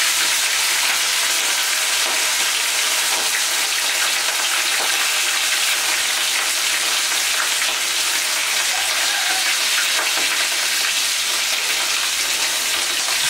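Seasoned snapper frying in hot oil: a steady, even sizzle.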